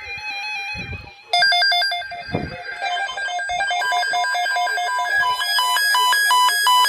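Electronic beeping melody of quick stepping square-wave notes, like a phone ringtone, starting loudly about a second in after a faint steady hum.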